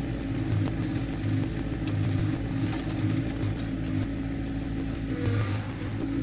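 John Deere 2025R compact tractor's three-cylinder diesel engine running steadily while its backhoe digs a drainage ditch.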